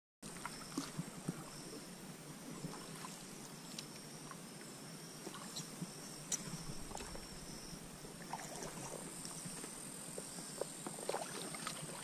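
Quiet ambience heard from a kayak on still water: faint water movement with scattered small knocks and clicks, and a steady faint high-pitched tone underneath.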